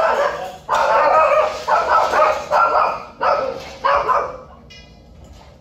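Shelter dogs barking in a quick run of loud, repeated barks inside a hard-walled kennel building, dying down about four seconds in.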